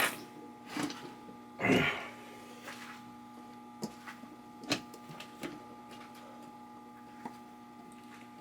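Steady electrical hum with scattered clicks and knocks from handling wiring parts and tools, the loudest about two seconds in.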